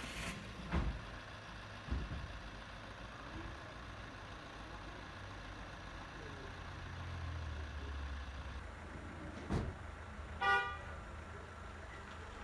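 Low rumble of vehicle engines with a few dull thumps, and a short car horn toot near the end.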